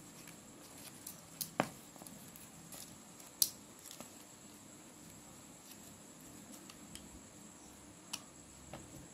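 Stiff coloured card being handled and folded by hand: light rustles and a few sharp clicks, the loudest about a second and a half and three and a half seconds in, with a scissor snip near the end.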